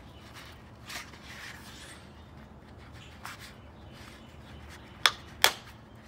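Hole punch biting through folded paper: faint handling clicks, then two sharp clicks close together near the end as the punch cuts and snaps back.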